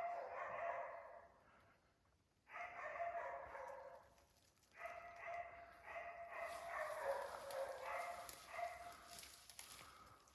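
Faint barking of West Siberian Laika hunting dogs, baying at a black bear they have treed. The barking comes in three runs with short pauses between them, the last one longest.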